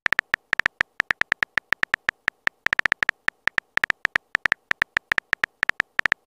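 A quick, uneven run of short electronic clicks, several a second: the key-tap sound effect of a phone keyboard as a chat message is typed.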